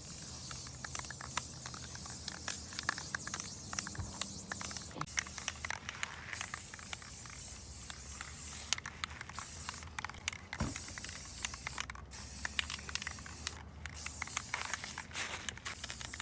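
Aerosol spray paint can hissing in repeated bursts, cutting off briefly several times between sprays.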